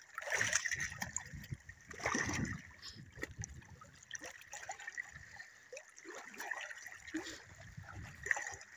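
Splashing and sloshing of feet wading through shallow seawater over rocks, in uneven bursts, loudest about half a second and two seconds in.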